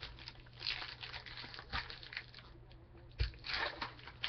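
Hands handling a stack of Topps Chrome baseball cards, making a string of short, uneven rustles and scrapes over a low steady hum.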